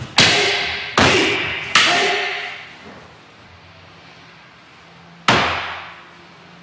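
Wooden staff (bo) and wooden sword clacking together in sparring: three sharp strikes in quick succession, then a pause and one more strike, each ringing out in the hall.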